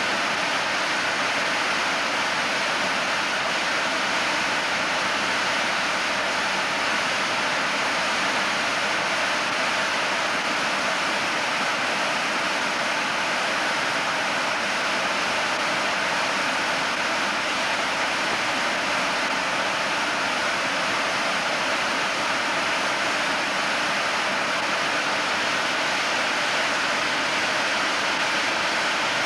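SimJet 1200 model jet turbine, an 18-pound-thrust engine, running steadily on a test stand: an even rushing exhaust noise with no change in pitch or level.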